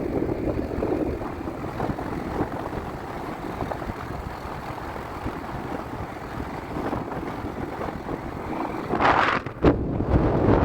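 A vehicle running steadily, with wind rushing over the microphone. A short louder gust of wind comes about nine seconds in, followed by a sharp click.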